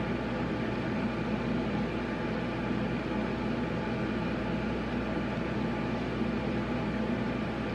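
Steady room background hum and hiss, with no distinct events.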